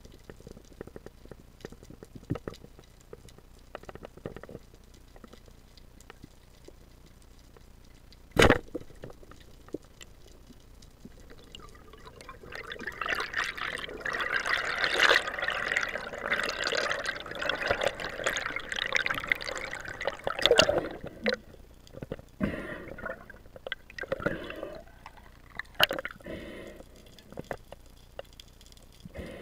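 Underwater, a single sharp clack about eight and a half seconds in, which fits the shot of a wooden roller speargun. From about twelve to twenty-one seconds there is a loud rushing and bubbling of water around the underwater camera, followed by a few scattered knocks.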